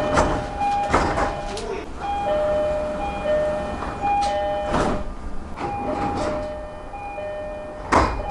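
JR East-type three-tone train door chime sounding over and over, its high and low tones alternating about once a second. Knocks from the train run beneath it, with a loud sharp thump near the end.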